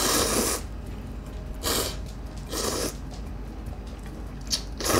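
A person slurping ramen noodles, four quick hissing pulls of air and noodles, with a small sharp click shortly before the last one.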